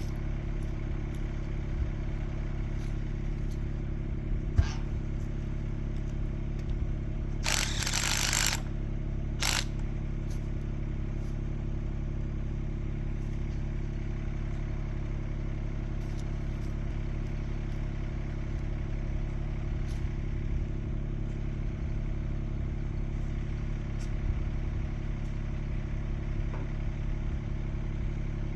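Kymron XH20D mini-excavator's engine running steadily under work, with scattered light clanks. About eight seconds in comes a loud, noisy burst lasting about a second, followed by a shorter one.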